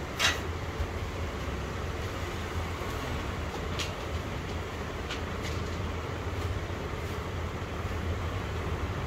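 Steady low machine hum, with one short sharp hiss about a quarter second in. Soft brief rustles follow around four and five seconds in as embroidered cloth is spread and smoothed on an ironing table.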